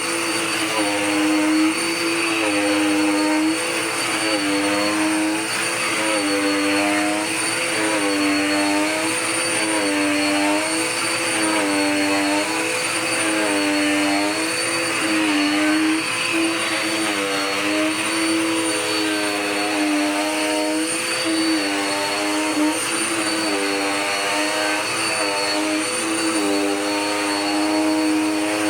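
Dirt Devil Power Max Pet vacuum cleaner running continuously, its motor note dipping slightly and recovering in pitch about every two seconds, over a steady high whine.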